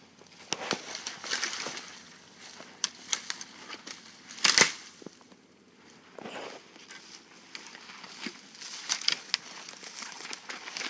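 Footsteps crunching and crackling through dry leaves and brush, irregular, with one sharp crack a little under halfway through.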